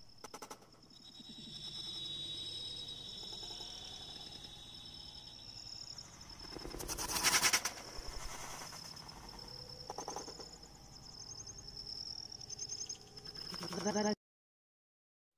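Outdoor background of insects and birds chirping steadily in a high pitch. A short, louder noisy burst comes about seven seconds in, and the sound cuts off completely about a second before the end.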